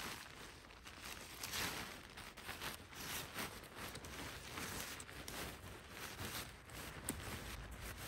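Nylon tent fabric rustling and swishing as it is spread out and pulled straight over dry fallen leaves, with footsteps in the leaf litter. One sharp click near the end.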